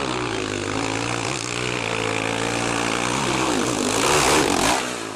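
Dirt bike engine revving hard under load on a steep climb, its pitch wavering, loudest about four seconds in, then dropping away just before the end.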